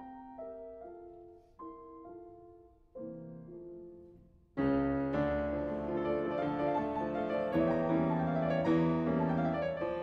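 Background piano music: slow, soft single notes at first, then about halfway through it suddenly becomes louder and fuller, with low bass under the melody.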